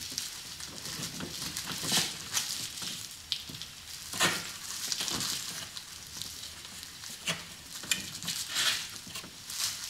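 Hands rummaging among the parts around a snowmobile's carburetors: irregular rustling and scraping with scattered light clicks of small parts being handled, the sharpest click about four seconds in.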